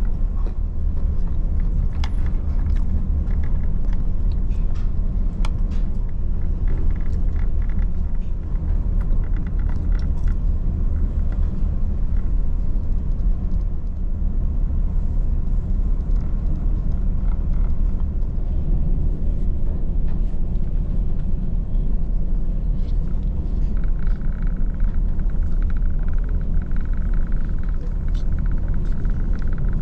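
Steady low rumble of the ferry Ishikari under way, its engines and hull droning evenly, with faint light clicks of chopsticks and tableware.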